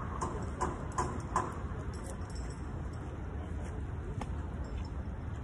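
Footsteps on wet pavement: a quick run of sharp clicking steps in the first second and a half and one more about four seconds in, over a steady low outdoor rumble.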